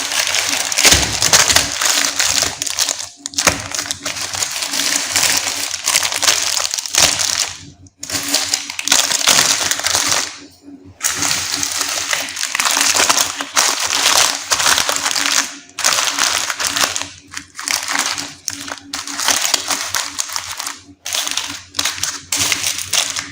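Plastic candy wrappers crinkling loudly as they are handled and torn open, in long stretches broken by short pauses.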